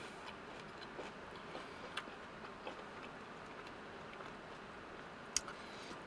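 Quiet mouth sounds of someone chewing a mouthful of sandwich: a few faint, scattered clicks, with a sharper click near the end.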